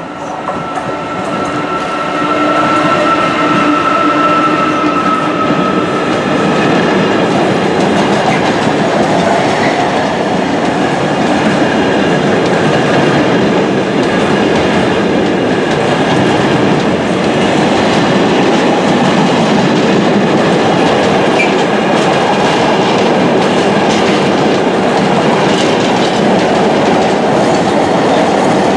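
Direct Rail Services Class 88 locomotive 88002 passing with a long container freight train. A steady whine from the locomotive builds over the first few seconds, then gives way to a continuous rumble and clatter of the container wagons' wheels on the track.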